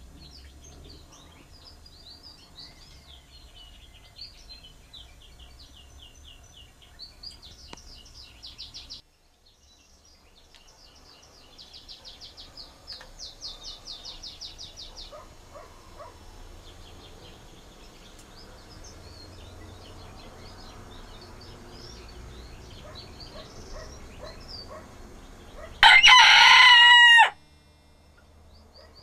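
Small birds chirping and trilling faintly in the background, then near the end a rooster crows once, loud and brief.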